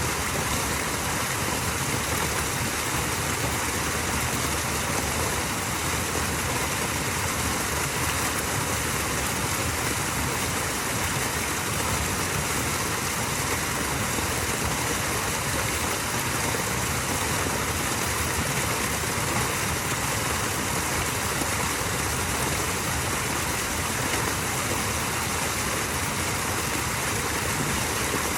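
Small waterfall: water falling and running in a steady, even rush.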